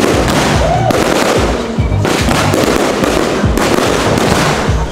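Aerial fireworks going off in a dense, continuous barrage of bangs and crackling. A short arching tone, like a brief whistle, sounds just under a second in.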